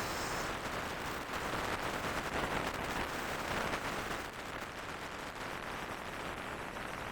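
Rushing wind buffeting the microphone on a speedboat under way, mixed with the hiss of water rushing past the hull.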